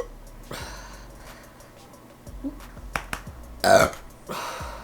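A woman lets out one short, loud burp brought up by chugged Diet Coke, about three and a half seconds in. A few sharp clicks come just before it and a breathy exhale follows.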